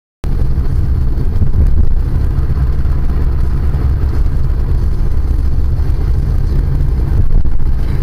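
Steady low rumble of a car driving at road speed, engine and tyre noise heard inside the cabin through a dashcam microphone. It starts abruptly a moment in.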